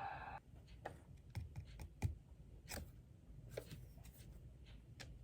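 Faint, irregular clicks and light taps from handling small objects, the loudest about two seconds in.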